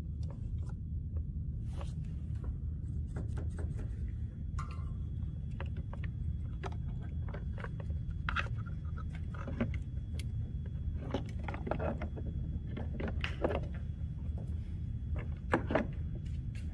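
Hands handling wires and plastic parts inside a mower's housing: scattered light clicks, taps and rustles, a few sharper clicks near the end, over a steady low hum.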